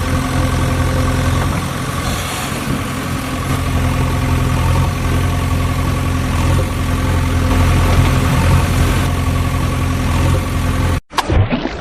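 An engine idling steadily with an even, low hum. It cuts off abruptly near the end, followed by a brief burst of other noise.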